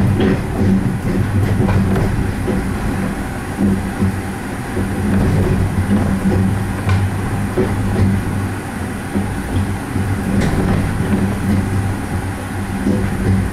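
Skyrail gondola, a car hung from a suspended monorail-style track, running along its elevated track: a steady low hum with rumbling and a few sharp clicks, heard from inside the car.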